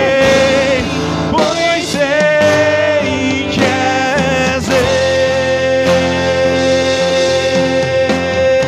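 A live worship band plays a slow song on acoustic guitar and keyboard, with a singer's wordless, wavering melody. About five seconds in, the voice settles on one long held note.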